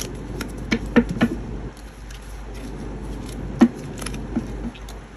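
A tarot deck being shuffled overhand, the cards snapping and slapping together in short, irregular clicks; the sharpest comes a little past the middle.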